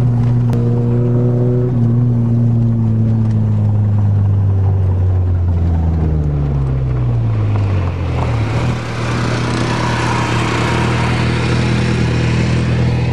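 Manual Toyota car engine heard from inside the cabin, running at steady revs while driving, then its pitch drops over a couple of seconds as it comes off the throttle. For the last five seconds a loud rushing noise covers the low engine hum.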